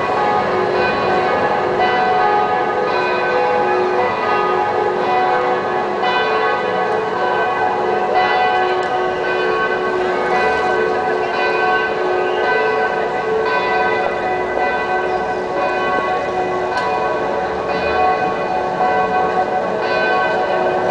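Church bells ringing in a continuous peal: several bells of different pitch sound over one another, struck again and again.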